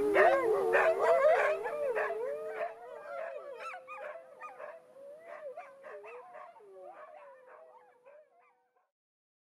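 A group of wolfdogs howling together: one long, steady howl held under several wavering howls and short yips. The chorus fades out over several seconds.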